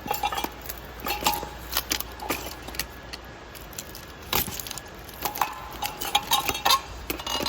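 Hunter ceiling fan running, with loose metal parts clinking and rattling irregularly, many sharp clicks a second over a faint hum.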